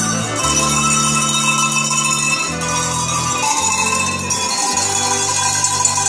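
A set of cowbells rung by hand to play a tune, their ringing notes changing every half-second or so, over low held accompaniment notes.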